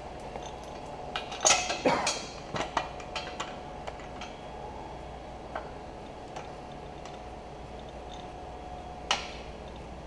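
Metal clinks and knocks from a hand hydraulic crimper being seated and clamped in a pipe chain vise: a cluster of sharp clicks in the first three seconds, then one more click about nine seconds in.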